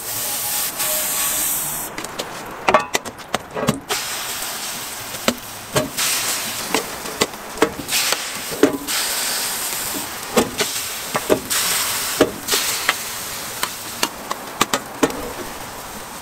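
Butter and egg-vegetable batter sizzling on a hot flat-top steel griddle, a steady hiss. From about two seconds in, many short clinks and taps of a metal ladle against the steel batter pot and the griddle as the batter is ladled out.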